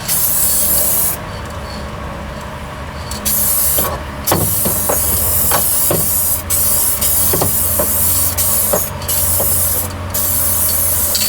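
Paint being sprayed: a steady spray hiss in bursts of a few seconds, broken by a longer pause about a second in and several short pauses after, over a low steady hum.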